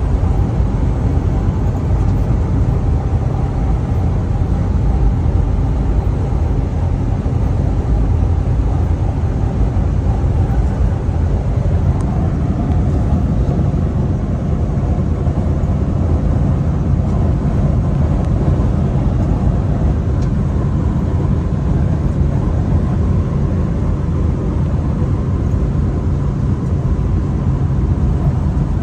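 Steady low rumble of a semi-truck's engine and tyres at highway cruising speed, heard from inside the cab.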